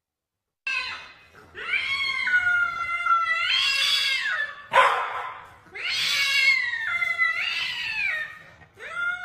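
Cats yowling at each other in a fight standoff: long, drawn-out threat yowls that waver up and down in pitch, with a sudden short hiss about five seconds in.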